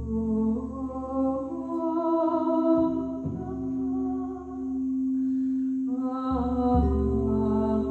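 Crystal singing bowls ringing in long steady tones, with another bowl struck near the end, while a voice sings long wordless tones that step slowly in pitch over them.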